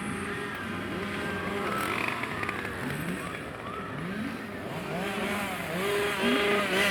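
Two-stroke chainsaw engine revved up and down again and again, its pitch rising and falling, with a loud rev that drops away near the end.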